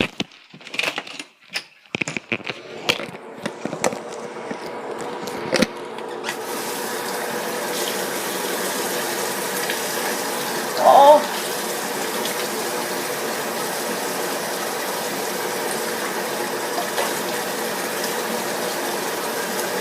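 A few clicks and knocks, then tap water running steadily into a sink from about six seconds in, with one short wavering squeak near the middle.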